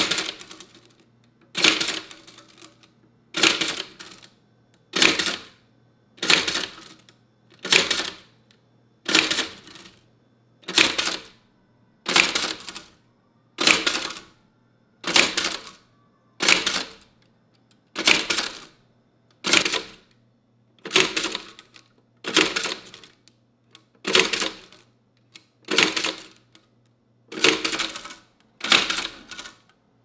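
Toshiba BW-2112 Japanese index typewriter printing characters one at a time: a sharp mechanical clack about every second and a half as each selected character is struck onto the paper.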